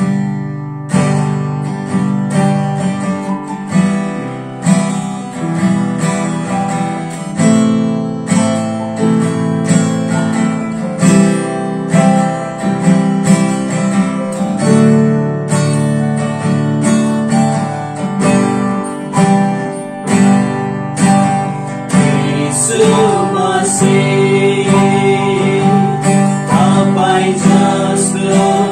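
Acoustic guitar strummed in steady rhythmic chords as a worship-song intro. A man's singing voice joins over the guitar about three-quarters of the way through.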